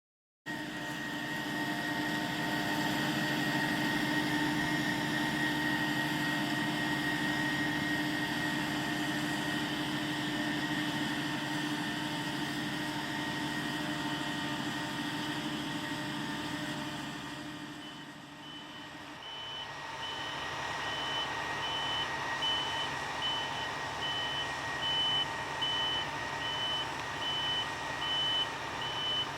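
Potato-harvesting machinery running with a steady engine noise and constant whining tones. About two-thirds of the way in, a reversing alarm starts beeping roughly once a second.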